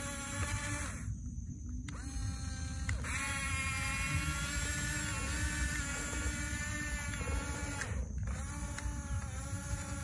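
Huina 1569 radio-controlled bulldozer's electric drive whining as it pushes sand with its blade, the pitch shifting up and down. The whine cuts out for about a second near the start and again briefly about eight seconds in, over a steady low rumble.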